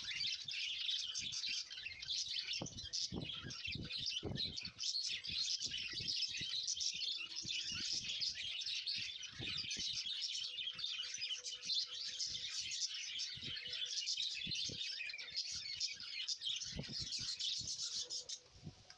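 Many small birds chirping and twittering together in a dense, continuous chorus that cuts off near the end, with soft low thumps now and then.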